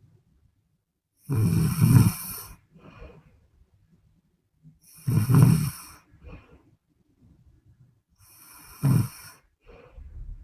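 A woman snoring in her sleep: three loud snores about three and a half seconds apart, each followed by a faint, short breath, the last snore briefer than the other two.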